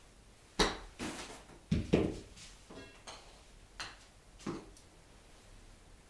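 A series of irregular sharp knocks and clicks, loudest about half a second in and twice close together around two seconds in, then fainter ones spaced through the rest.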